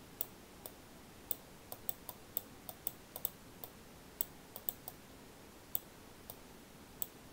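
About twenty sharp, irregularly spaced clicks from a computer pointing device, one for each pen stroke as a word is handwritten onto a slide with a digital drawing tool.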